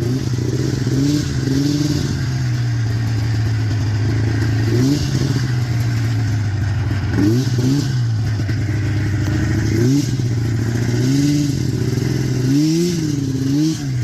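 1990 Arctic Cat EXT 530 snowmobile's two-stroke engine running under way, holding a steady drone with the revs rising and falling again several times, about every two to three seconds.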